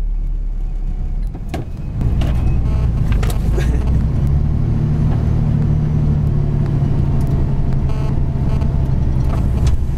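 Heavy diesel truck engines running, from inside a truck cab while a Hino concrete mixer truck passes close by. A steady low engine hum comes up about two seconds in and holds, with a few light rattles and clicks.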